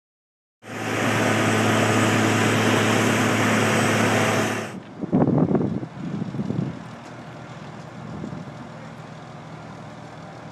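Heavy diesel machinery running at close range: a loud, steady engine noise with a low hum that cuts off abruptly a few seconds in. It is followed by a few louder surges and then a fainter, steady engine hum.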